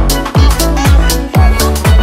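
Electronic dance music with a deep kick drum on every beat, about two beats a second, under layered synth tones.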